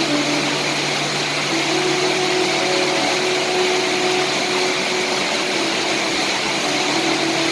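Steady rain, an even hiss that does not let up, with a low steady hum and faint wavering tones underneath.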